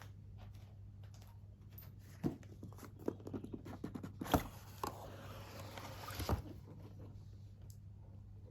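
Cardboard box and packaging being handled: scattered taps and clicks, then about two seconds of tearing as it is opened, over a steady low electrical hum.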